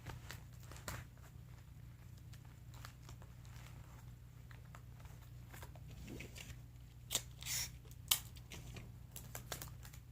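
Sticky tape being pulled and torn and pressed onto cardboard, with small crinkling and tapping sounds; louder tearing of tape about seven seconds in and a short sharp rip a moment later.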